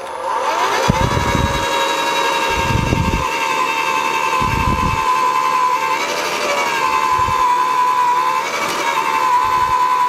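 AEG 36 V (twin 18 V) Fusion cordless post hole digger's electric motor and gearbox, spinning up to a steady high whine as it bores into the ground. Its pitch dips briefly twice under load.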